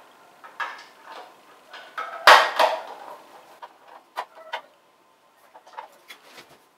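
Hard plastic clicks and clatter from a wall-mounted toothbrush holder as its clear plastic cover is opened and pushed shut, with the loudest knock about two seconds in and a few sharp clicks after it.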